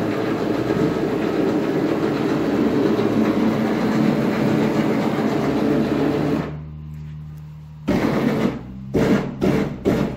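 Vehicle lift's motor running steadily as it lowers a car chassis, cutting off abruptly about six and a half seconds in. It is followed by a low hum and a few loud knocks near the end.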